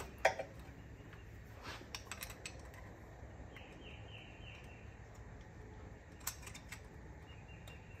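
Scattered light metallic clicks and scrapes of a hand tool working inside the bore of a 6.0 Powerstroke low-pressure oil pump, trying to free a stuck relief valve. The clicks come in a few small clusters over a faint steady background.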